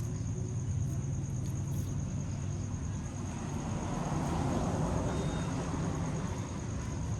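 Outdoor ambience: a steady high insect trill, like crickets, over a low rumble. The rumble swells and fades again about four to six seconds in.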